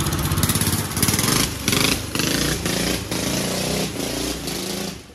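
A motor vehicle's engine running and revving, with short dips and rises in pitch, then cut off abruptly about five seconds in.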